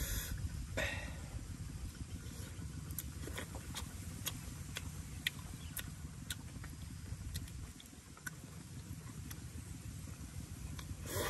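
Scattered small sharp clicks and crackles as fingers pick charred skin off roasted food, over a steady low wind rumble on the microphone.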